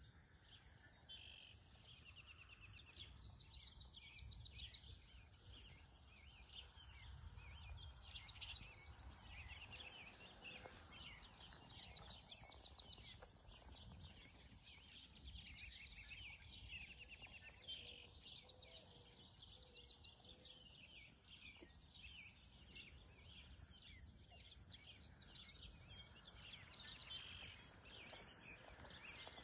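Faint, high-pitched bird chirps and trills, many short calls overlapping one another, with a low rumble of wind underneath.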